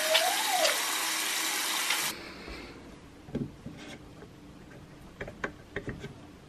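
Tap water running steadily into a bathroom sink over hands being washed, cut off suddenly about two seconds in. Then a quiet stretch with several short clicks and squirts from a pump dispenser bottle being pressed into a palm.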